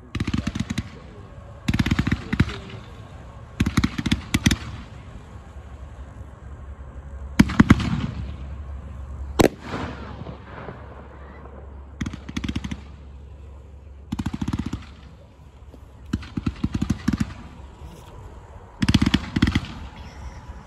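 Multi-shot consumer fireworks cake, Touch of Gold, firing gold-tailed shots. Every couple of seconds comes a quick run of sharp pops, and there is one single sharp bang about nine and a half seconds in.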